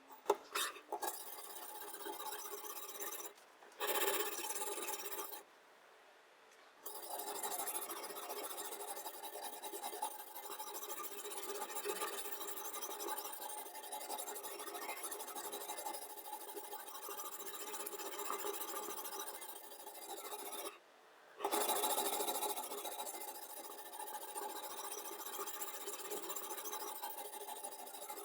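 Diamond sharpening stone rubbing back and forth along the edge of a chef's knife in a guided sharpening system, a steady gritty scraping that stops briefly three times.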